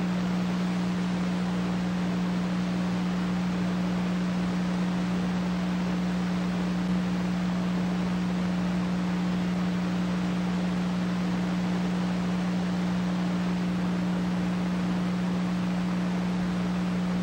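Steady low electrical hum over constant hiss, with no change in pitch or level.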